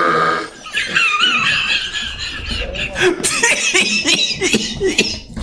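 A long, deep burp trails off in the first half-second, followed by bursts of laughter and snickering.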